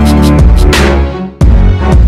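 Background music with heavy bass and a steady beat; it drops away briefly about a second and a half in, then comes back in.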